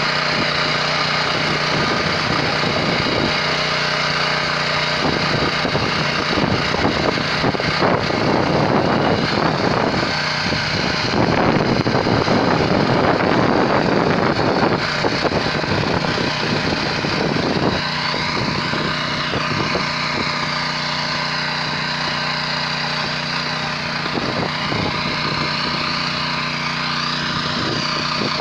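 Walk-behind tractor engine running steadily under load while its rotary tiller cuts into the soil, the sound growing louder and rougher for several seconds in the middle before settling back.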